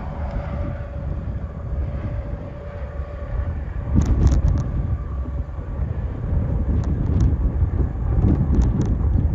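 Strong storm wind buffeting the microphone as a deep, gusting rumble, with a faint steady hum that fades partway through and a few sharp clicks about four seconds in and again near the end.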